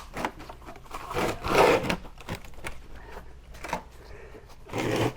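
Workshop handling noise as a motorcycle rear wheel is worked into place: a few short scrapes, about a second in and again near the end, with scattered light knocks.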